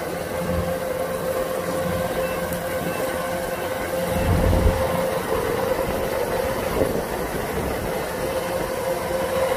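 Kubota DC-105X rice combine harvester running steadily as it moves through the field, a steady whine riding over the diesel engine noise. A deeper rumble swells briefly about four seconds in.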